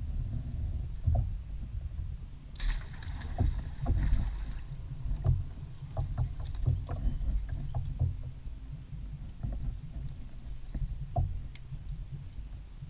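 Bowfishing shot at a common carp from a plastic kayak: a sudden burst of splash and hiss about two and a half seconds in, lasting about two seconds, as the arrow goes out and the line pays off the reel. Scattered knocks and clicks of the bow and reel against the kayak hull follow, over a low rumble.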